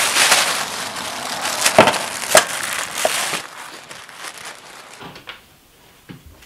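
Plastic shopping bag rustling and crinkling as it is carried, with a few sharp crackles. It grows much quieter after about three and a half seconds.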